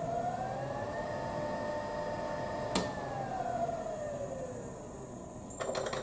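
Three-phase electric motor run by a variable speed drive: its whine rises in pitch as the drive ramps it up to speed, holds steady, then after a click of the stop push button about three seconds in falls away as the drive ramps the motor down to a stop.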